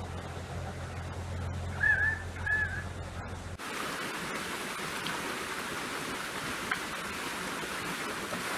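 A steady low hum with two short high chirps, then, after a cut about three and a half seconds in, a steady rush of water flowing in a sheet down wide stone steps.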